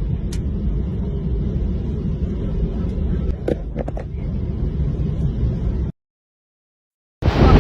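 Storm wind rumbling on the microphone, with a few short sharp knocks about halfway through. The sound cuts to silence for about a second, then louder wind gusts hit the microphone.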